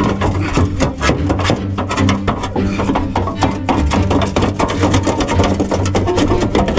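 Background music with a steady low bass line and quick clicking beats.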